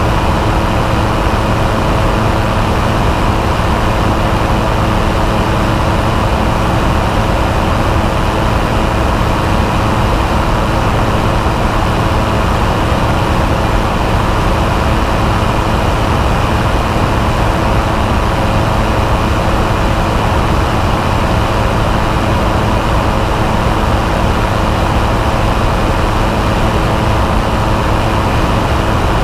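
Microlight trike's engine and propeller running at a steady cruise, a constant drone with wind rushing over the camera mounted on the wing.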